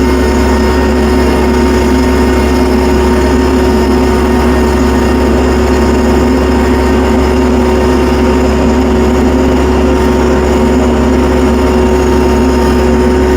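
Tractor engine running steadily at a constant pitch while the tractor drives in snow.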